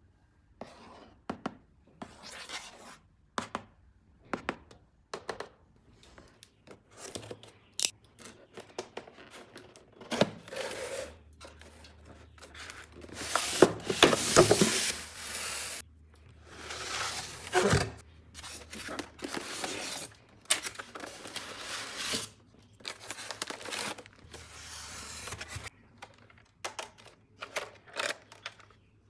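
Toy packaging being opened by hand: irregular tearing, rubbing and crinkling of the packaging, with a longer, louder tear about halfway through.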